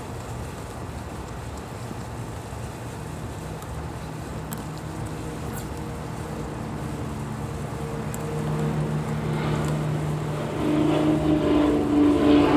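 An engine running with a steady low hum that grows louder over the last few seconds, its pitch holding level.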